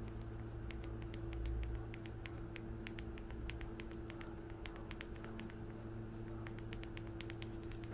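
Worn ball joint of a removed TRW anti-roll bar link from a Skoda Fabia Mk1, worked back and forth by hand, giving an irregular run of faint little clicks over a steady low hum. The joint is loose inside, and this clicking is what comes through amplified as a knock in the car.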